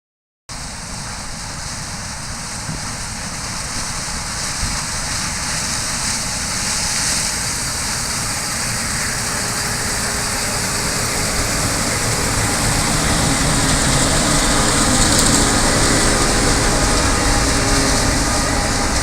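Corn-harvesting machinery running: a loud, steady mechanical din that starts abruptly about half a second in and slowly grows louder.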